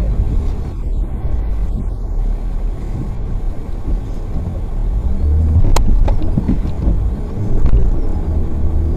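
Low rumble of a car's engine and tyre noise heard from inside the moving car through a dashcam microphone, with a sharp click about six seconds in.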